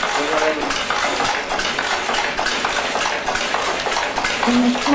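Steady, dense mechanical clatter of a Hattersley tweed loom weaving, with brief pitched sounds near the start and near the end.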